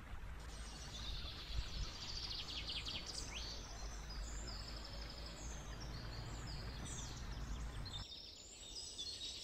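Songbirds chirping and trilling over the steady low rush of a shallow stream running over stones. The rush drops out about eight seconds in while the birdsong carries on.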